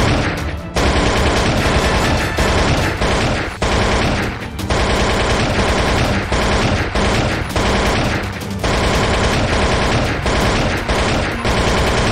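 Rapid automatic gunfire sound effect dubbed over shots from a toy blaster, in a few long bursts with short breaks between them.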